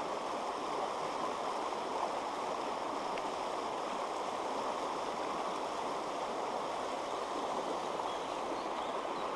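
Shallow, rocky stream rushing over stones in a steady, even flow.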